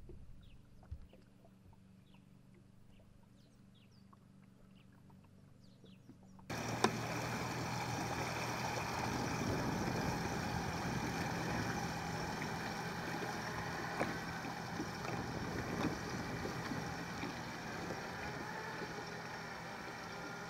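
Faint bird chirps over a low hum, then, suddenly about six seconds in, bass-boat outboard motors running at speed with water rushing past the hull, holding steady as a boat passes close and pulls away.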